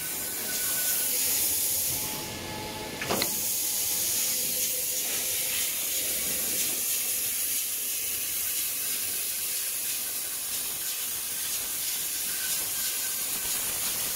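V-grooving machine running, its multi-blade cutting carriage travelling along and grooving a metal sheet: a steady hissing machine noise. A brief lull about two seconds in ends in one sharp knock.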